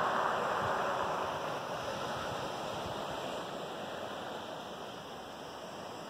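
Rushing water of a small waterfall spilling over shoreline rocks, a steady hiss that fades gradually.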